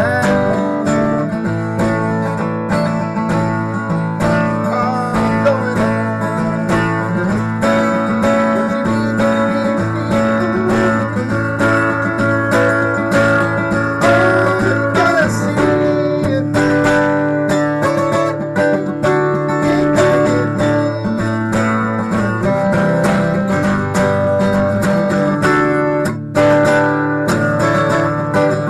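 Acoustic guitar strummed and picked steadily, with a man's singing voice coming in at times.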